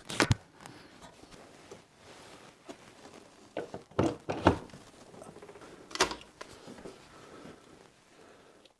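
A few scattered clicks and knocks from handling, the loudest about four and four and a half seconds in and again about six seconds in.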